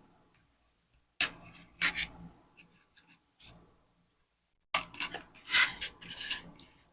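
Bubble wrap and plastic packaging being handled and unwrapped. There are two spells of rustling and scraping with a few light clicks between them.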